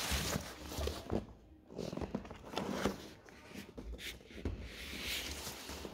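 Cardboard laptop box being slid, lifted and turned on a glass tabletop: irregular scrapes, rustles and knocks.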